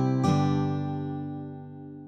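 Outro music on acoustic guitar: a chord strummed about a quarter second in, left to ring and slowly fade out.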